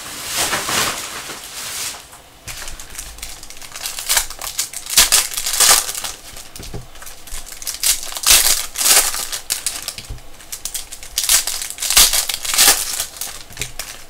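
Plastic and foil trading card pack wrappers being torn open and crinkled, in irregular bursts.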